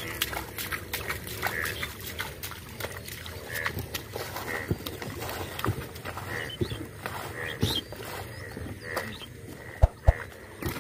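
Splashing and wet footsteps in shallow water and mud, with a short animal call repeating about once a second. Two sharp thumps come near the end.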